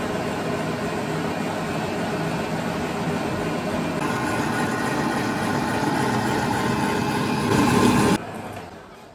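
Electric stand mixer running at speed, its whisk beating cream and sugar in a steel bowl; the motor is steady and stops suddenly about eight seconds in.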